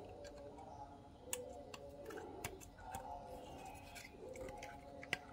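Scattered sharp clicks and taps of small plastic and metal parts being handled as a motorcycle mirror is taken apart, over faint background music.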